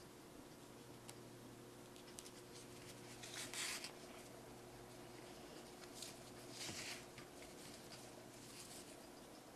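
Faint rustling of yarn and crocheted fabric being handled while sewing pieces together with a yarn needle, with two louder swishes about three and a half and six and a half seconds in, over a faint steady hum.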